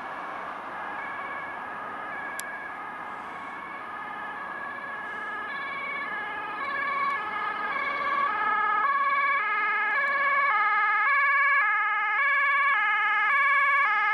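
Emergency vehicle's two-tone siren, alternating between a high and a low pitch and growing louder as it approaches, over road noise.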